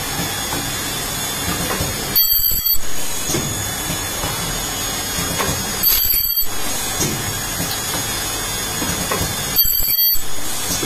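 Ultrasonic plastic welding machine cycling three times, about every three and a half to four seconds. Each weld is a short high-pitched whine lasting about half a second, over a steady background machine noise.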